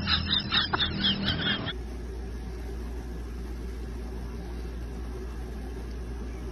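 A newborn kitten mewing in quick, high, squeaky cries while being bottle-fed, for just under two seconds; after that only a steady low hum remains.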